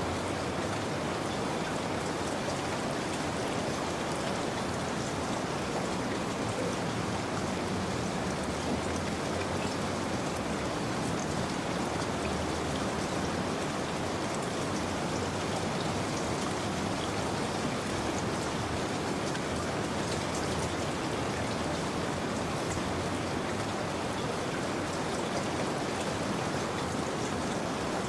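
Steady rain falling, an even patter and hiss that holds the same level throughout.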